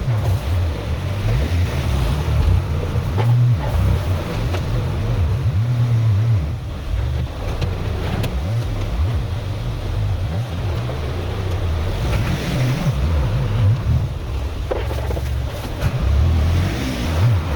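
Tractor engine running under varying load, its low rumble rising and falling, with a few short knocks along the way.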